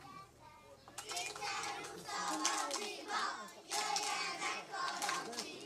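A group of children singing together in a folk game song, coming in about a second in, with a few hand claps among the voices.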